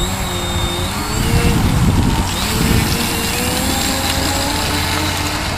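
Electric motor and propeller of a radio-controlled model Cessna 350 Corvalis whining as it throttles up for a takeoff roll, the pitch climbing about two seconds in and then holding steady, with a low rumble partway through.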